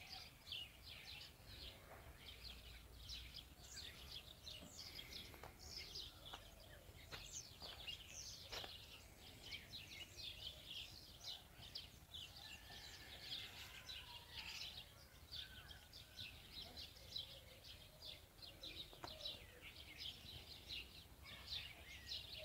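Faint, continuous chatter of many small birds chirping rapidly and overlapping.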